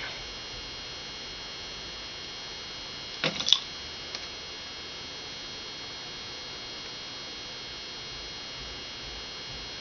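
Steady electrical hum with a high, thin whine, and a short cluster of clicks and taps a little over three seconds in.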